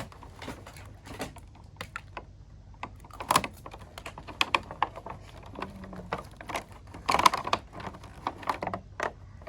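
Irregular light clicks and taps, with a few louder knocks a little past three seconds in and again about seven seconds in, from a plastic doll being handled.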